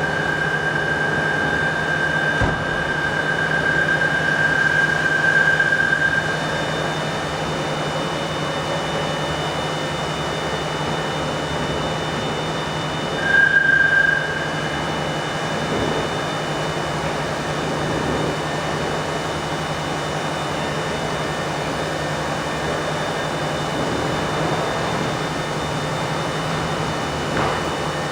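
Steady workshop machinery noise with a constant low hum. A high steady whine runs for about the first six seconds and comes back briefly about thirteen seconds in.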